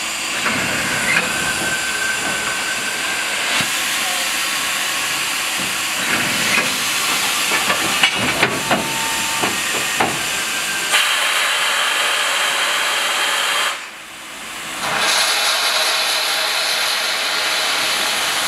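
Soviet L-class 2-10-0 steam locomotive hissing steadily with escaping steam. Late on the hiss drops away for about a second, then returns stronger and higher as steam blows out at the cylinders.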